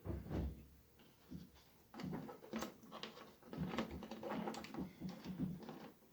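Irregular clicks, taps and light knocks of small parts being handled by hand on a work table.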